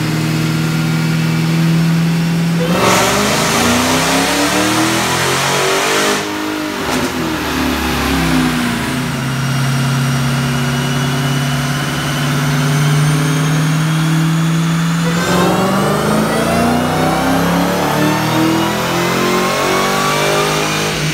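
Dodge V8 muscle cars run on a chassis dynamometer. The engine holds a steady speed, climbs in revs from about three seconds in and drops back about six seconds in, holds steady again, then climbs through a second long pull from about fifteen seconds in, with a high whine rising along with it.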